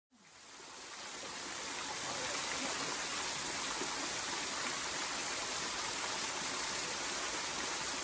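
Small waterfall spilling in thin streams over a rock ledge into a shallow creek: a steady rush of falling water, fading in over the first two seconds.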